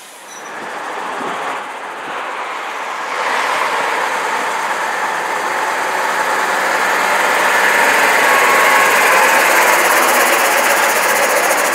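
Vintage single-deck bus's diesel engine running as the bus drives up and passes close by, growing louder from about three seconds in and loudest near the end.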